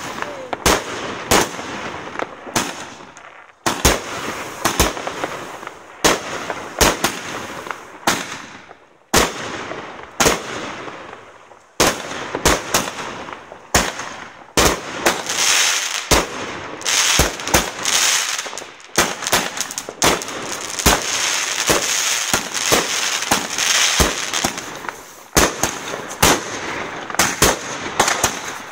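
Aerial fireworks going off: a quick, irregular string of sharp bangs from bursting shells, with crackling and hissing between them that is densest midway through.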